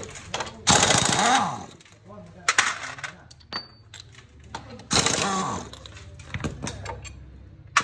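Metal clinks and rattles from hand tools and loose bolts, with scattered short sharp clicks. A voice is heard in the background, about a second in and again about five seconds in.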